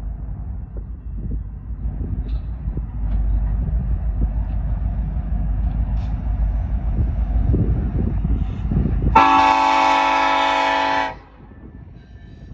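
Norfolk Southern diesel locomotives rumbling as they draw close on the curve. About nine seconds in, the lead locomotive's multi-chime air horn sounds one long blast of about two seconds that cuts off sharply.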